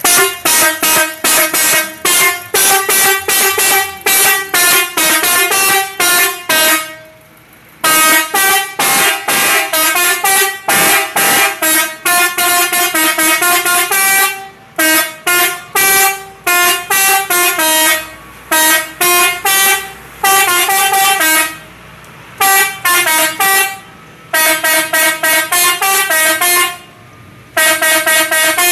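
Telolet horn, a set of multi-tone air-horn trumpets driven by a controller module, playing a fast melody of short staccato honks in changing pitches. The phrases are separated by brief pauses.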